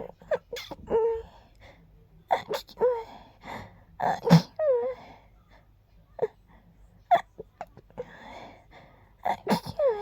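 A woman's gentle, breathy sneezes, several in a row. Each one has a high voiced gasp that slides down in pitch, followed by a short sharp release. The loudest comes about four seconds in.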